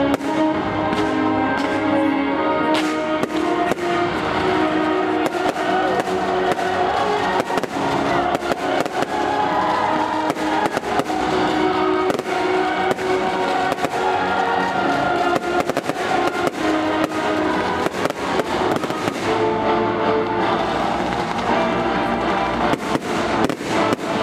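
Fireworks display: many sharp bangs and crackles from shells bursting, over loud music played for the show.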